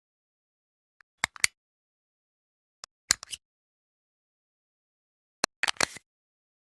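Camera shutter clicks, three times about two seconds apart, each a quick cluster of sharp clicks with silence between.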